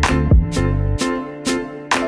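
Background music with a steady beat: sustained chords over a bass line, with a sharp drum hit about every half second.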